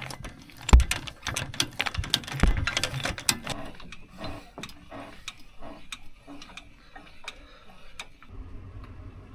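Irregular clatter of sharp clicks and knocks, dense for the first few seconds and then thinning out, with two heavier thumps, one just under a second in and one about two and a half seconds in.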